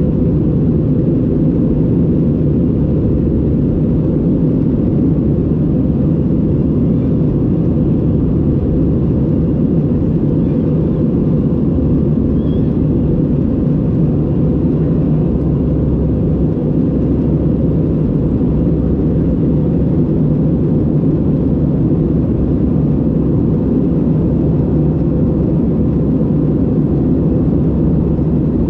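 Airbus A320 cabin noise in flight: a steady low rumble that does not change.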